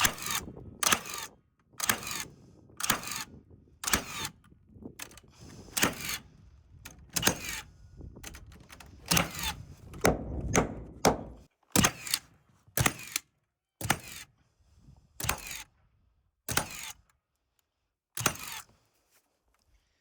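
A series of sharp knocks on the wooden subfloor sheathing, about one a second, spacing out after about twelve seconds: hammering or nailing down the panels.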